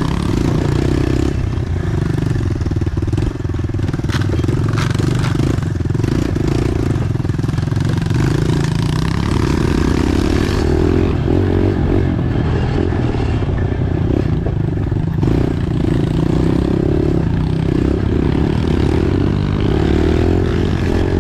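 Pit bike engine running steadily on a dirt trail, its revs rising and falling with the throttle.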